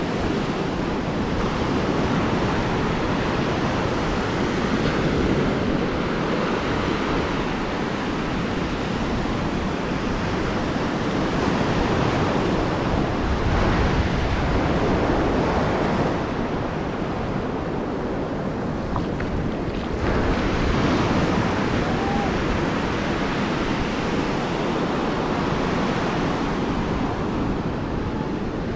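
Ocean surf breaking and washing onto a sandy beach, a continuous rush that swells louder at times, with wind rumbling on the microphone.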